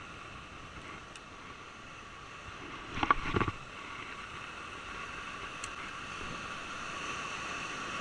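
Sea surf washing and breaking over rocks in a steady rush, growing louder in the second half. A brief loud rush of noise comes about three seconds in.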